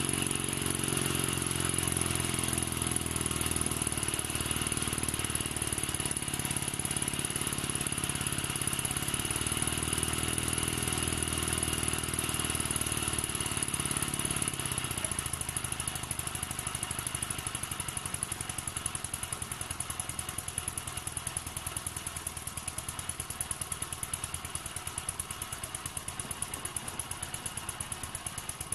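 Small model steam engine running fast: a quick, even chuffing and whirring from the engine, its flywheel pulley and the belt-driven line shaft. A steady low hum sounds over it for the first half and stops about halfway through.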